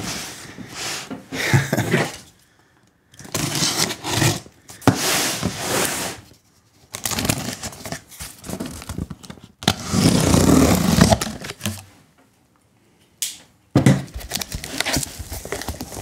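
Corrugated cardboard shipping box being shifted and scraped on a table, its packing tape torn open and the flaps pulled back. The sound comes in several bursts of scraping and tearing, separated by short pauses.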